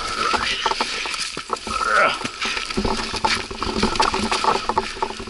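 A fallen dirt bike being dragged up a rocky slope by hand: irregular scraping and clattering of the bike and rocks, with scuffing footsteps on loose stones.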